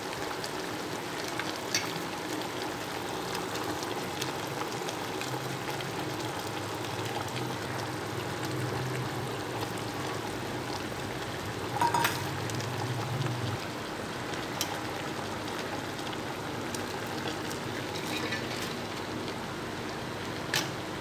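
Steady sizzling hiss of a pot of chicken, potato and tomato gravy cooking on the stove, with a low hum for several seconds in the middle. A short clatter of a utensil on the pot comes about halfway through, and a single click comes near the end.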